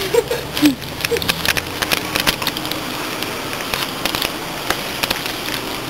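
Loud crackling rustle with many scattered clicks, close to the microphone.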